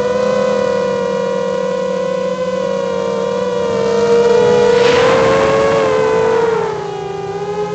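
FPV quadcopter's electric motors and propellers giving a steady, high whine that wavers slightly in pitch. From about four seconds in, a louder rushing sound joins it, then near the end the whine drops in pitch and gets quieter as the throttle comes off.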